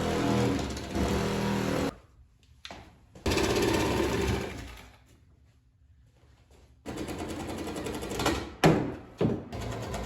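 Handheld power tool run in three bursts with a rapid pulsing buzz, the first two about two seconds and a second and a half long, the last running on from about seven seconds in, broken by two sharp knocks near the end.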